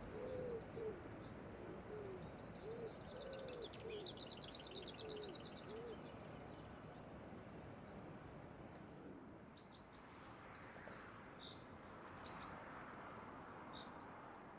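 Birds calling and singing: a low call repeated about twice a second through the first six seconds, a rapid high trill from about two to five seconds in, then sharp high chirps. A faint steady background runs underneath.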